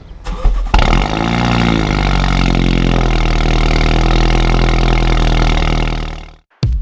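MINI F56 John Cooper Works' 2.0-litre turbocharged four-cylinder, with Gruppe M intake and JCW Pro exhaust, starting up: a brief crank, a flare of revs that drops back, then a steady idle that ends about six seconds in.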